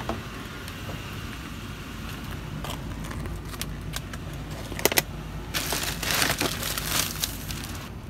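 Van door latch clicking as the door is opened by its handle, a few knocks, then plastic grocery bags rustling loudly for a couple of seconds, over a steady low rumble.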